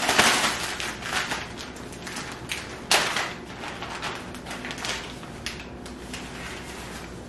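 Plastic zip-top bag crinkling and rustling as a wet catfish fillet is shaken in dry seasoning mix inside it, loudest at the start and then quieter, with one sharp click about three seconds in.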